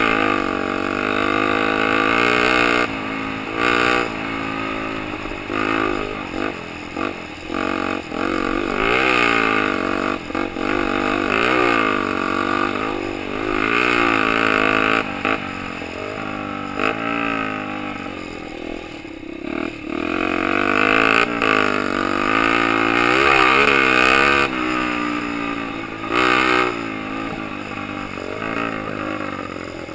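Honda XL 125 R's single-cylinder four-stroke engine being ridden hard off-road, its note repeatedly rising under throttle and dropping back every second or few as the rider works through the gears and on and off the throttle.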